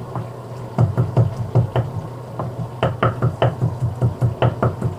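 A run of sharp knocks, starting about a second in. They come scattered at first, then settle into an even beat of about four a second near the end, over a steady low hum.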